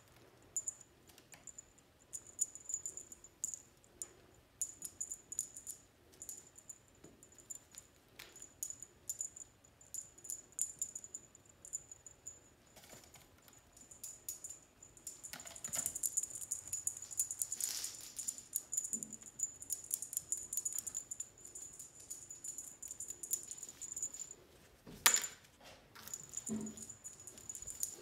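A small bell jingling in quick shakes as Siamese kittens bat and pounce at a wand toy, with light clicks and scratching from paws and claws. A busier scratchy rustle comes in the middle, and there is one sharp knock near the end.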